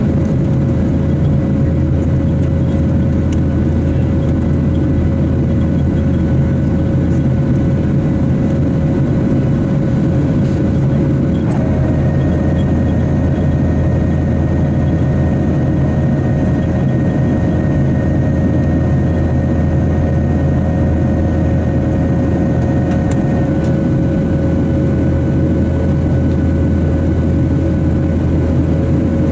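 Boeing 737 cabin noise during the climb after takeoff: a steady, loud deep rumble from the jet engines and rushing air, with a constant hum on top. A higher steady whine joins about a third of the way in and stops a little past two-thirds.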